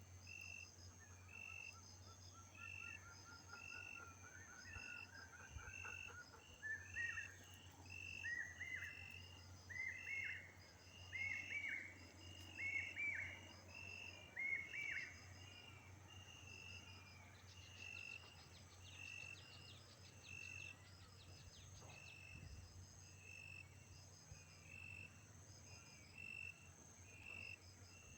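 Faint outdoor insect chorus: a high chirp repeating about once a second, with quicker trilling pulses above it. For several seconds in the middle, a series of short rising-and-falling calls from an animal joins in, grouped in twos and threes.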